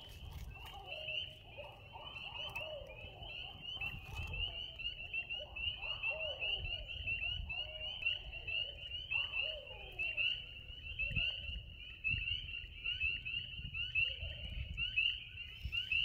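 Barred owls giving wavering, rising-and-falling caterwauling calls through the first ten seconds or so, which the recordist takes for mating calls. Behind them runs a dense, steady chorus of high-pitched peeping frogs.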